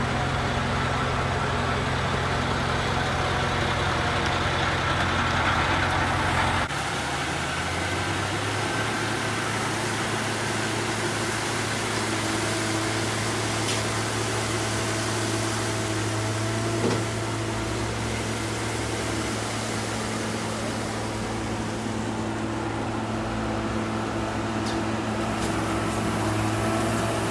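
Engines of road-construction trucks and machinery running steadily during tar-and-chip resurfacing, with an abrupt change in the engine sound about seven seconds in.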